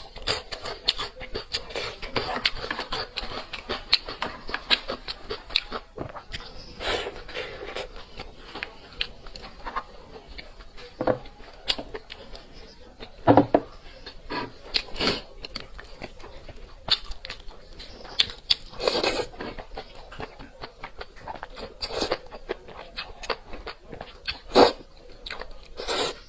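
A person chewing and biting food, with irregular crunches and wet mouth smacks.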